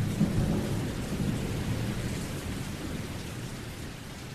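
A low rumble over a steady hiss, slowly fading, much like rolling thunder with rain.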